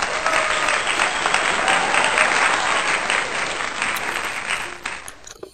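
Crowd applause, an added sound effect, loud and steady, fading out near the end.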